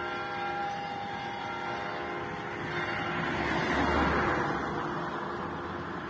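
Orthodox cathedral bells ringing, their tones fading over the first second or two, with one lower tone lingering. A passing car's road noise swells to a peak about four seconds in and then eases off.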